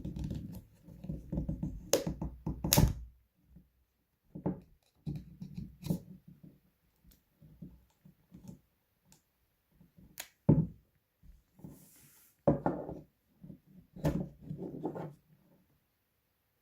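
Sharp plastic clicks and knocks, with handling rustle, as a Samsung Galaxy Note 3's cover is prised off its clips, in scattered bursts separated by quiet gaps.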